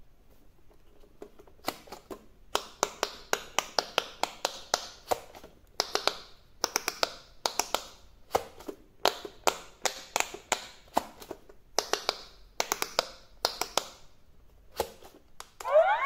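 Silicone bubbles of an electronic quick-push pop-it game being pressed, giving runs of sharp popping clicks, several a second, with short pauses between runs. Right at the end the toy switches on and a rising electronic tune begins.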